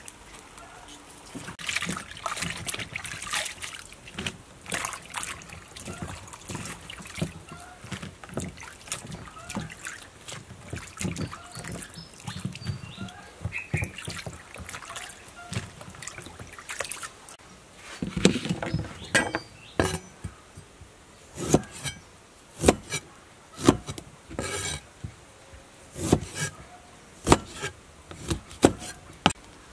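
Water trickling and splashing with handling noises as vegetables are rinsed, then a knife cutting limes on a wooden cutting board: sharp knocks about once a second in the last third.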